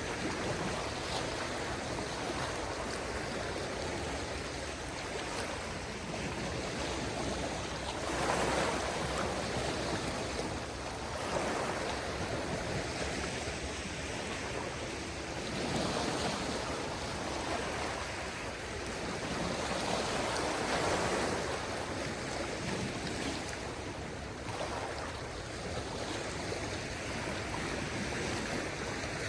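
Small waves of a calm sea washing onto the shore, a continuous wash of water with a swell every few seconds.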